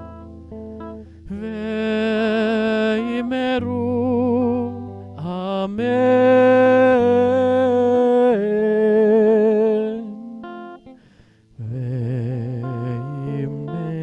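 A man singing long, held notes with vibrato into a microphone, accompanied by guitar. There is a brief pause about eleven seconds in before the singing resumes.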